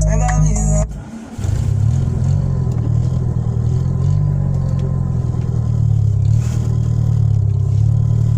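Music with singing from the car stereo cuts off about a second in, then a car's engine and road noise are heard steadily while driving, the engine note rising and falling slightly.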